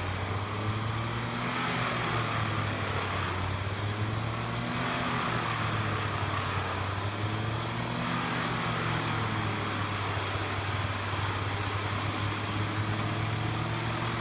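Morbark 4036 drum wood chipper running steadily on its 765 HP CAT diesel engine, a deep continuous drone whose pitch wavers slightly up and down.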